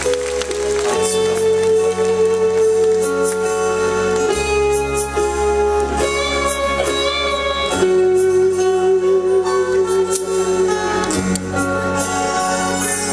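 Live band playing an instrumental passage of a Korean folk-pop song: two acoustic guitars strummed, with electric guitar and bass, under long held melody notes.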